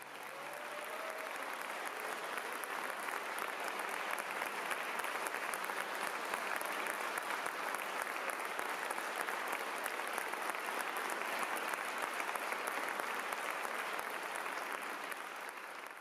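Audience applauding at the end of a live performance: dense, steady clapping that swells over the first couple of seconds and then holds.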